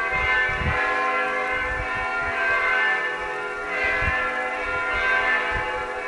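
Church bells ringing, many tones sounding on together and swelling again with fresh strokes every second or so.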